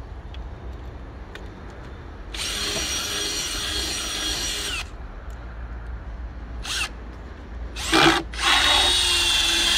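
Cordless drill driver running in two bursts of a couple of seconds each, driving a screw into the wooden trellis frame: the first about two and a half seconds in, the second near the end, just after a sharp knock.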